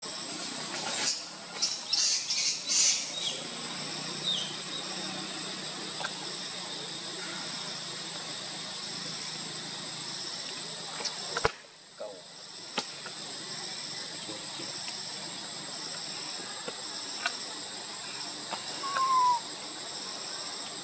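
Steady high-pitched drone of forest insects, with a cluster of short shrill squeaks in the first few seconds and a short falling chirp near the end.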